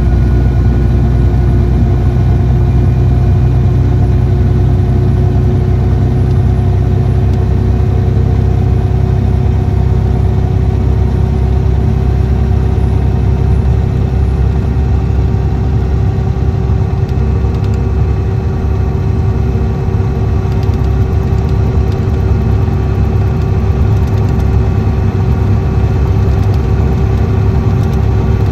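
Cummins ISX 11.9-litre six-cylinder diesel engine of an MCI D4500CT motor coach running steadily, its pitch holding constant.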